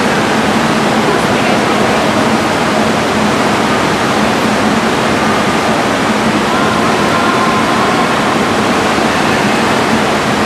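Indoor swimming pool ambience: a steady, even rushing noise, with faint voices underneath in the second half.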